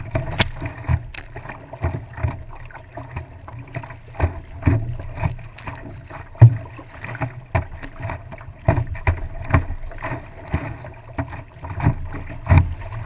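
Water splashing and slapping against the nose of a stand-up paddleboard as it is paddled along, with irregular short thumps, the loudest about six and a half seconds in.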